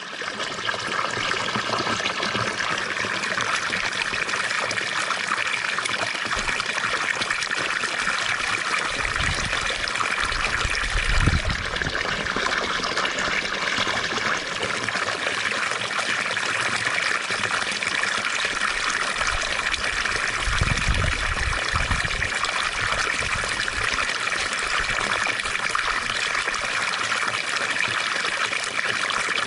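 Water fountain splashing and trickling steadily, with a couple of brief low rumbles about a third and two thirds of the way through.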